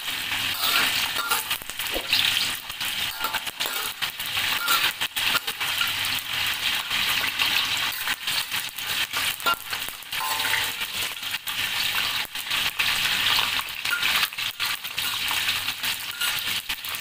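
Whole spices (star anise, cinnamon stick and cloves) sizzling in hot oil in a stainless steel wok, with a metal spatula clinking and scraping against the wok as they are stirred. This is the first stage of the tumis, frying the whole spices until fragrant.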